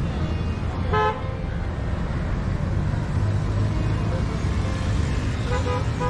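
A vehicle horn gives a short toot about a second in and a few more brief toots near the end, over a steady low rumble.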